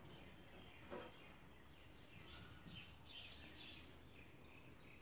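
Near silence: faint room tone, with a soft knock about a second in and a few faint high chirps between two and four seconds in.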